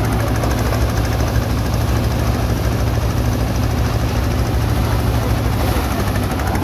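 Paddy threshing machine running under load as rice stalks are fed in: a loud, steady mechanical drone with a strong low hum from its belt-driven threshing drum and power unit.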